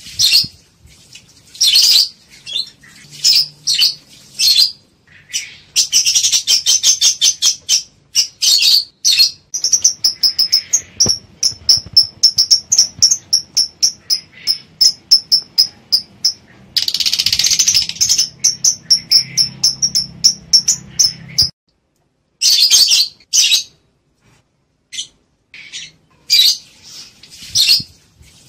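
Lovebirds calling in breeding condition ('birahi'): fast runs of high, sharp chirps, several a second, broken by a few harsh raspy squawks. Near the end it thins to scattered bursts with short gaps.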